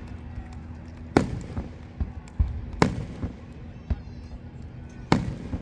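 Aerial fireworks shells bursting: three loud bangs about a second and a half to two seconds apart, each trailing a short echo, with smaller pops between them.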